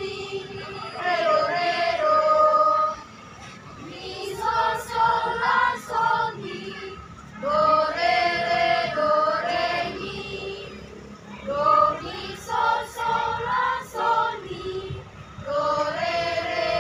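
A school choir of young teenage boys and girls singing together in phrases of about three seconds, with short breaths between them.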